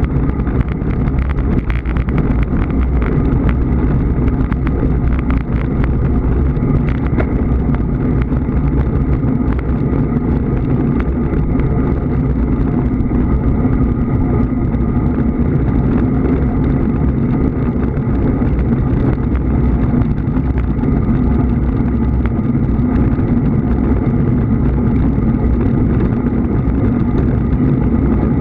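Steady wind and road rumble from a camera travelling at speed along the road, with a faint steady hum over it.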